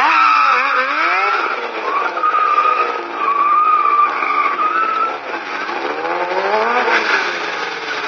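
Sportbike engine revving hard up and down during stunt riding. A wavering tyre squeal runs through the middle few seconds as the rear tyre slides on the pavement.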